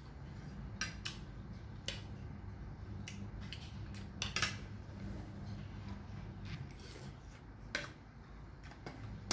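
Eating sounds: chewing and mouth clicks, with scattered sharp taps against a plate as food is picked up by hand, over a low steady hum.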